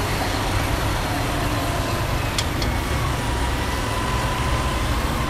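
Dump truck's diesel engine running steadily with a low rumble, with two short sharp clicks about halfway through.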